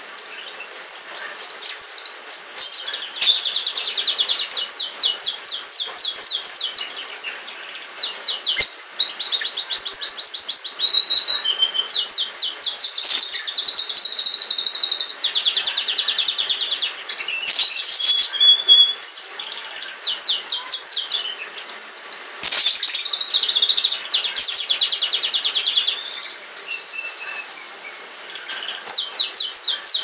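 Orange frost canary singing a long song of fast trills and rapidly repeated high notes, phrase after phrase with short pauses between.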